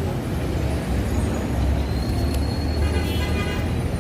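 Street traffic noise: a steady low rumble of passing vehicles, with a few faint ticks over it.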